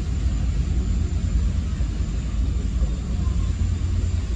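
Tour boat's engines running steadily under way, a low droning rumble heard from inside the wheelhouse, with a thin steady high whine above it.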